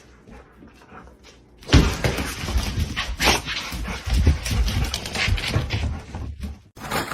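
A dog vocalizing loudly, starting suddenly under two seconds in after a quiet stretch and cutting off abruptly near the end.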